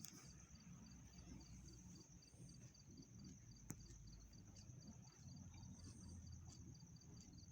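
Near silence, with a faint high-pitched steady tone and a soft high pulse repeating about four times a second.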